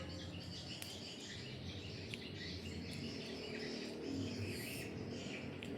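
Steady chirping of crickets and birds, a continuous high warbling chorus with a few faint clicks.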